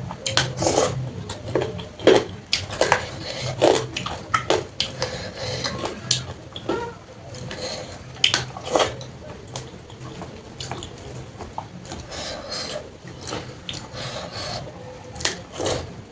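Wet eating sounds of panta bhat, rice soaked in water, being mixed and scooped by hand from a plate and eaten: irregular squelches, smacks and light clicks in quick succession.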